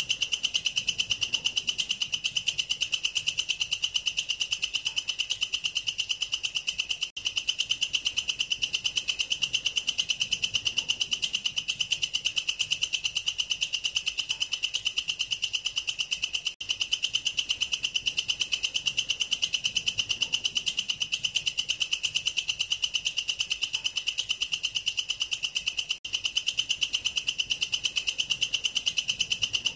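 Katydid (belalang kerek) calling: a loud, high-pitched, rapidly pulsing buzz that carries on without letup, broken only by three very short gaps about nine seconds apart.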